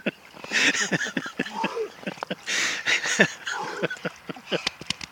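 A winter swimmer sitting in near-freezing water, breathing hard in hissing puffs with short grunts and small clicks in between.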